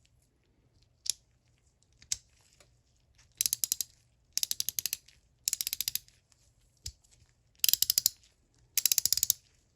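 A Kobalt USA 3/8-inch quick-release ratchet with a 36-tooth gear being worked: two single clicks, then five short runs of rapid pawl clicks, each about half a second long, the last two a little louder. The click is more pronounced in one direction than the other.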